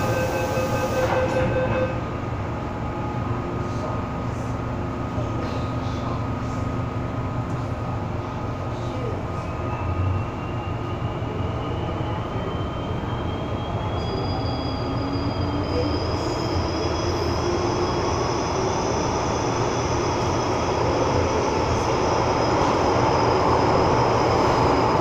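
Inside a Hong Kong MTR M-Train passenger car as it departs a station. A door-closing warning tone ends in the first second or two. The train then pulls away: its traction motors whine, rising steadily in pitch, and the running noise grows louder as it gathers speed into the tunnel.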